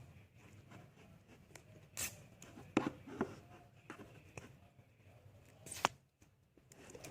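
A handful of small, sharp clicks and knocks from objects being handled, the loudest near the end, over a low room background.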